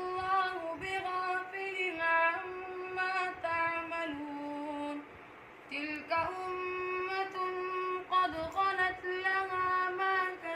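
A boy reciting the Quran by heart in Arabic, in a high, melodic chanting voice with long held notes, pausing for breath about five seconds in.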